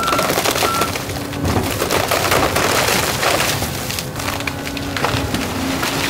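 Volvo crawler excavator's bucket pushing a tree over: wood cracking and splintering and branches snapping, over the steady running of the excavator's diesel engine. Two short beeps sound in the first second.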